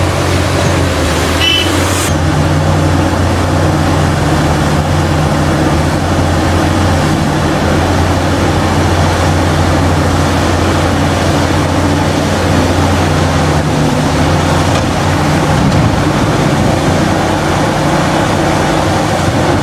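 Cat 6015B mining excavator's C27 diesel engine running as the machine digs and swings loads into dump trucks: a steady, deep, even drone.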